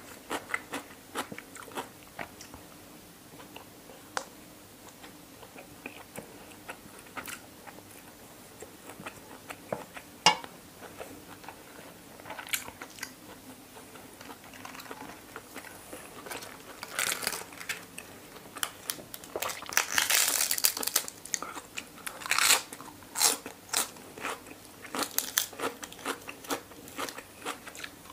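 Close-up mouth sounds of eating: chewing with sharp, crisp crunching bites of raw vegetables. The crunches are sparse at first, then grow louder and more frequent from a little past halfway.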